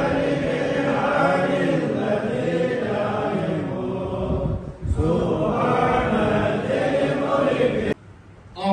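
An imam's voice chanting Quranic recitation aloud while leading congregational prayer, the melody rising and falling in long held phrases. It breaks briefly about five seconds in and again near the end, then the chanting resumes.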